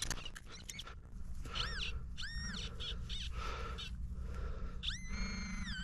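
A metal detector gives an electronic whine that rises in pitch, holds and falls again each time the probe passes over a buried metal target. It sounds several times, with the longest tone held near the end, after a few scraping clicks of digging in the soil near the start.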